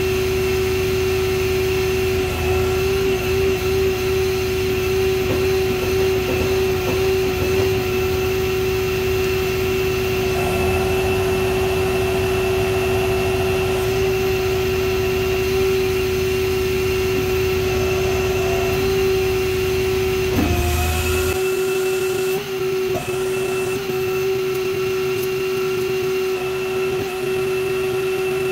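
A steady mechanical whine over a low rumble; about twenty seconds in, the whine dips briefly in pitch and the rumble cuts out, while the whine carries on.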